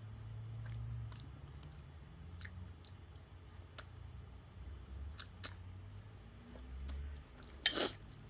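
A person chewing a mouthful of ramen noodles close to the microphone, with small wet mouth clicks. Near the end comes one short, loud slurp.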